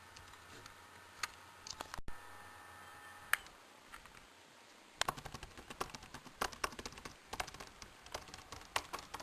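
Laptop keyboard keys being pressed: a few scattered clicks, then from about five seconds in a quick, irregular run of typing.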